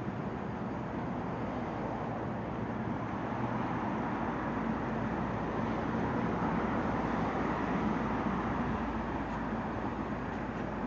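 Road traffic on a city street: a steady rush of passing vehicles that grows a little louder in the middle.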